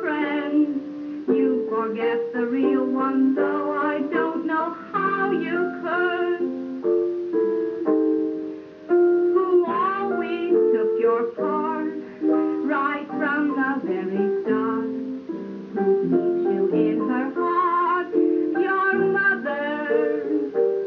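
A woman singing a sentimental ballad about her mother, her voice wavering with vibrato over an instrumental accompaniment.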